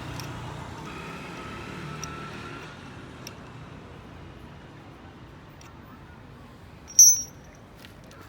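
A passing vehicle's engine fades out over the first few seconds, then metal hand tools give a few small clicks and one sharp metallic clink about seven seconds in.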